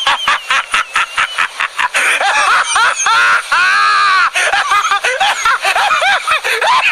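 A man's uncontrolled, manic laughter, loud: a rapid run of 'ha ha ha' bursts, a long wavering high-pitched cackle around the middle, then more short bursts.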